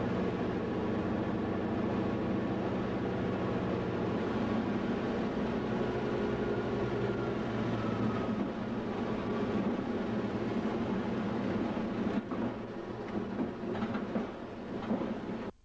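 Aircraft engine running steadily, heard from inside the cockpit as a constant drone with a rattling rumble. It cuts off abruptly at the very end.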